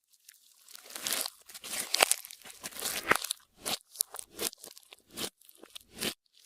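Clear slime being worked and squished by hand as makeup and glitter are mixed in. It gives off irregular crackling, crunchy bursts that start about a second in and break into shorter, separate squishes toward the end.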